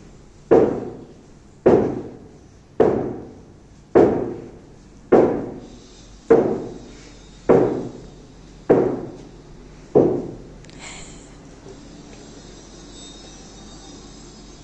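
Slow, evenly spaced dull thuds, about one a second, each fading out over most of a second. They stop about ten seconds in, leaving a steady faint hiss.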